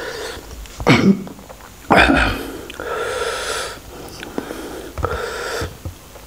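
A person's loud breathing: two sharp, loud sniffs or intakes of breath in the first two seconds, then two longer breathy exhales. These are typical of reacting to the burn of a very hot red chili sauce while eating.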